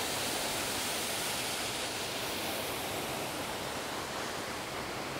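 Steady rush of a swollen creek's flowing water.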